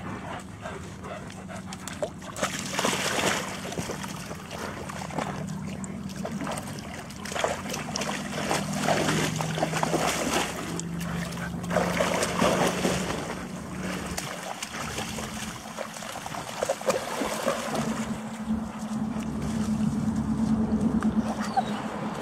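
German Shepherd dog splashing through shallow water, in irregular bursts of splashing.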